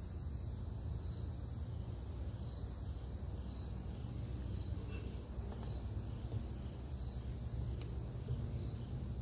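Crickets chirring steadily, with a low steady rumble underneath.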